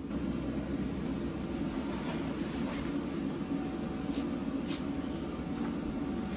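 Inflation blower of a portable inflatable paint booth running steadily, with a few faint light ticks over it.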